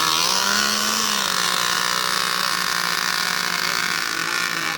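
Radio-controlled model racing boat engine running at high revs: a steady, high-pitched whine.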